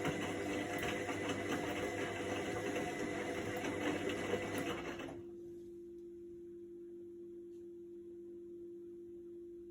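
Indesit front-loading washing machine on a quick wash: the drum motor runs with a dense mechanical whir, then stops about halfway through, leaving only a low steady hum.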